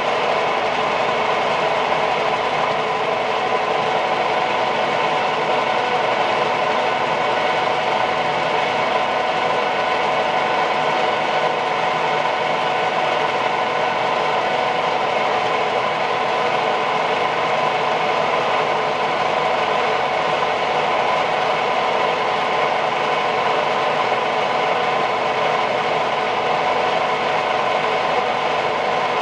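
A machine's motor running steadily at constant speed, with a steady whine of several fixed tones over a mechanical hum.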